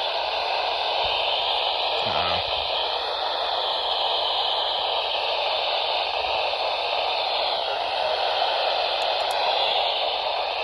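Weather radio receiver hissing with static as the broadcast signal fades, a steady rush of noise with a faint voice now and then showing through.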